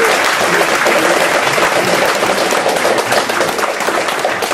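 An audience applauding, a dense, steady clapping of many hands.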